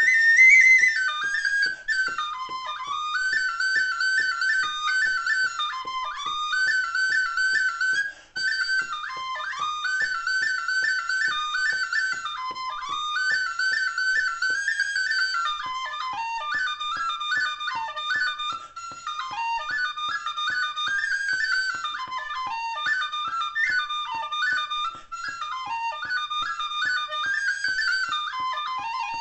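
Killarney tin whistle played solo, a fast Irish reel in quick runs of short notes.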